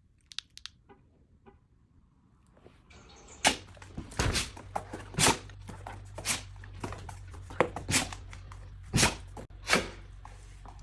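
A truck engine starts and runs as a steady low hum from about three seconds in, while a dog sneezes excitedly over it again and again, about eight short, sharp sneezes.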